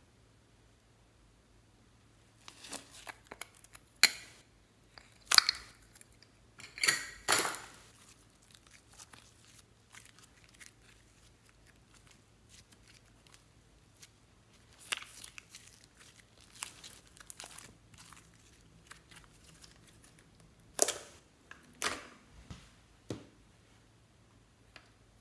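Green slime being pulled out of a plastic egg container and stretched by hand, giving short sticky crackling and tearing sounds. They come in irregular bursts with quiet gaps, loudest a few seconds in and again near the end.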